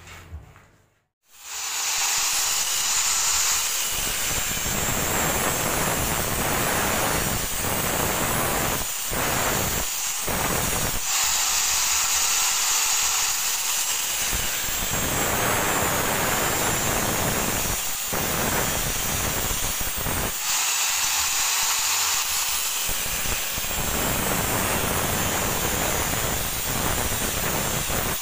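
Handheld electric angle grinder running its disc against a steel plate, a dense hissing whine that comes in about a second and a half in and dips briefly now and then as the disc comes off and back onto the metal.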